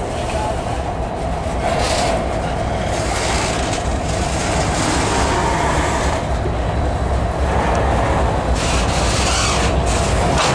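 Slow-moving freight train passing close by: steel wheels clacking over the rail joints, over the steady low rumble of diesel locomotives, which gets a little louder a couple of seconds in.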